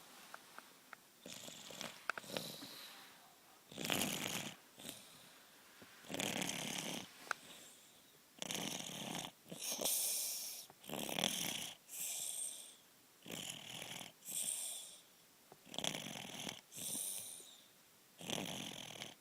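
Sleeping baby snoring, with lots of booger sound effects on each breath: the snuffly sound of a congested nose. The snores come slowly at first, then about once every second or so from halfway through.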